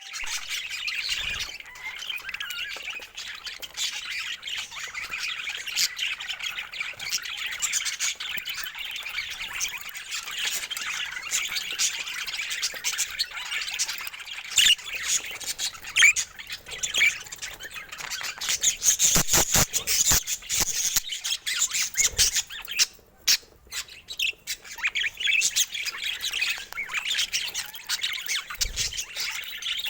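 Budgerigars chattering without a break. A run of sharp clicks or taps comes through the middle, and there is a brief lull about three quarters of the way in.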